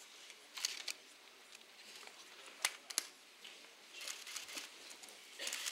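Quiet room with faint rustles and scuffs, and two sharp clicks about a third of a second apart near the middle.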